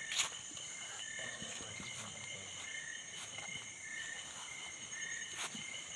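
Forest insects and frogs calling in a steady high chorus, with short chirps recurring about once a second. Two brief sharp clicks, one just after the start and one near the end.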